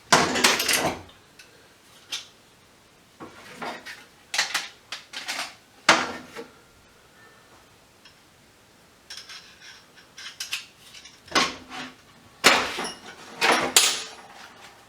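Metal objects clanking and clattering as scrap parts and tools are picked up and set down, in several separate bursts, some with a short metallic ring.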